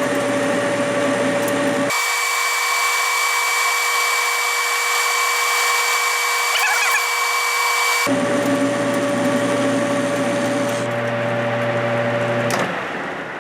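Metal lathe turning at 500 RPM while a Trigon-style carbide insert takes a roughing cut of about 60 thousandths off the diameter: a steady machining hum with a held whine. It falls away near the end as the cut finishes and the spindle winds down.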